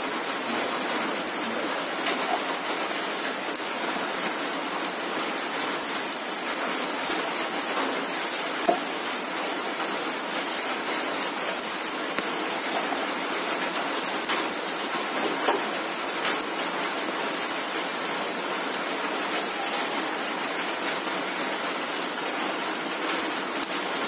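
Wood fire burning under whole fish grilling on a wire grill: a steady sizzling hiss with a few sharp crackling pops from the burning wood.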